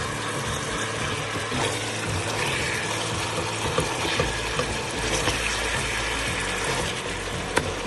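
Beef shank pieces sizzling and bubbling in oil in a pot as the last of the cooking water boils off, with a wooden spatula stirring them; one sharp click near the end.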